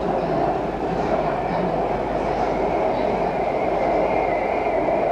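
Bangkok BTS SkyTrain carriage running at speed between stations, heard from inside the car: a steady rumble of wheels on track, with a faint high whine held throughout.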